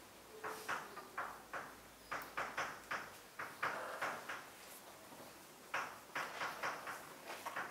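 Chalk writing on a chalkboard: quick runs of short taps and scratches as symbols are written, in four groups with short pauses between them.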